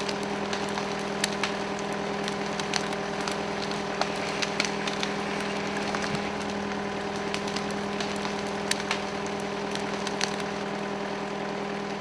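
Steady hum of a tractor engine powering a hydraulic log winch, with scattered cracks and snaps of twigs and dry leaves as a chained log is dragged across the forest floor.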